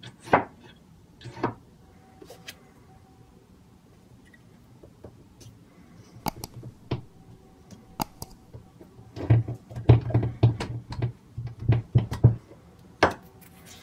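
Steel hammer head and a loose wooden wedge being handled on a wooden hammer handle: scattered light clicks and knocks, with a run of quicker knocking about nine to twelve seconds in.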